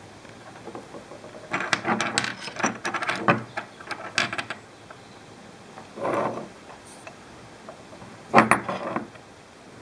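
Small metal rocket fragments clinking and rattling as they are handled, for about three seconds, then a brief scrape and a single sharp knock near the end.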